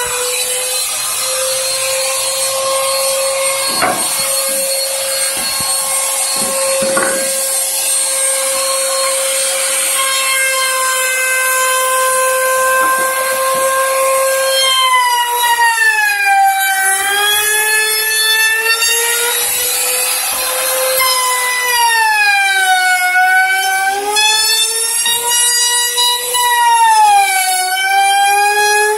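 Corded electric power tool working pine boards, its motor giving a steady whine. From about halfway through, the pitch sags and recovers several times as the tool is pressed into the wood.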